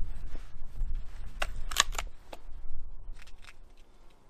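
Diana RWS Model 36 breakbarrel spring air rifle being cocked for the next shot. As the barrel is broken open there is a cluster of about four sharp metallic clicks, then a few fainter clicks a second or so later.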